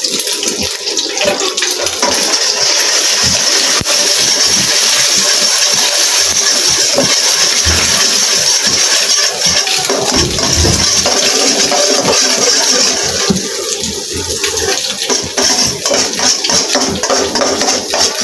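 Egg sizzling in hot oil in a steel wok, with a slotted metal spatula scraping and tapping on the pan as the egg is broken up and scrambled. The sizzle is steady and loud and eases off a little for a moment about two-thirds of the way through.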